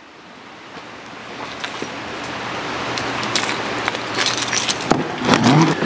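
Road noise of a passing vehicle, rising over the first few seconds and then holding steady. Light jingling clicks of small metal items being handled come through, most of them in the second half.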